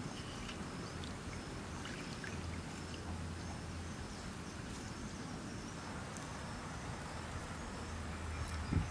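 Outdoor ambience: a steady background hiss with scattered faint, short bird or insect chirps, and a low hum that swells and fades twice. A single low thump comes near the end.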